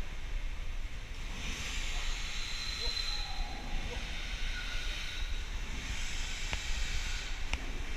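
Steady low background hum with two swells of hissing noise, the first about a second and a half in and the second near the end, and a couple of faint clicks.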